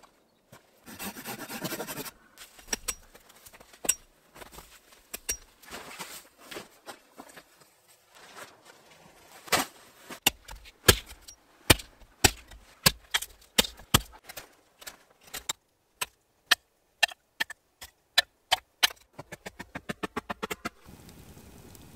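A long run of separate sharp knocks and taps from hand work with wood and a hatchet, with a brief rustle about a second in. Near the end the strikes come quickly, a hatchet's back driving a stake into the ground.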